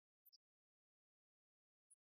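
Near silence: an essentially empty soundtrack, broken only by a few very short, faint ticks, two close together about a quarter second in and one near the end.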